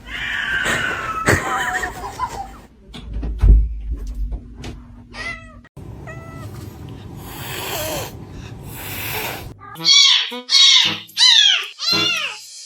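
Domestic cat meowing over and over in short, bending calls, with four loud meows falling in pitch near the end.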